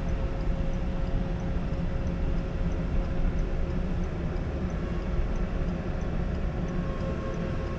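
A vehicle's engine running steadily while under way, a constant low engine noise with a steady whine above it.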